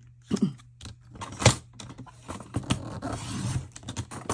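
Sliding paper trimmer cutting a sheet: a few sharp clicks as the rail and sheet are set, then the blade carriage scrapes along the track for about a second, near the end.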